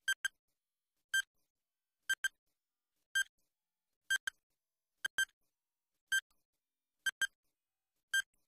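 Electronic quiz countdown timer ticking off the seconds: a short high beep about once a second, alternating a double beep with a single one, with silence between.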